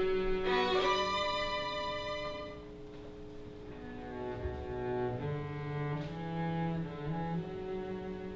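Bowed string ensemble of cellos and violins playing held notes in several voices; it fades quieter about three seconds in, then swells again with low cello notes.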